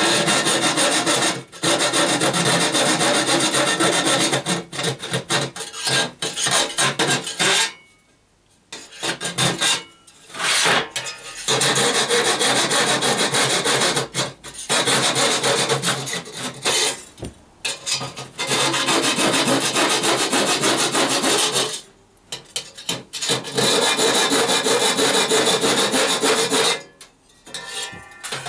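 Hacksaw cutting through the thin sheet-metal R2-D2 dome: fast rasping strokes in runs of several seconds, broken by a handful of brief pauses.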